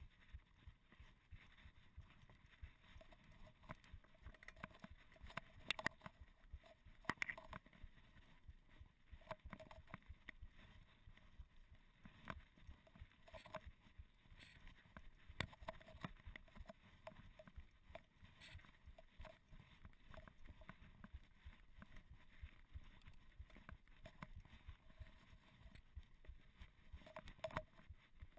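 Faint, irregular clicks and knocks of a mountain bike rattling over a rough, rutted dirt track, with a few sharper knocks from bigger bumps.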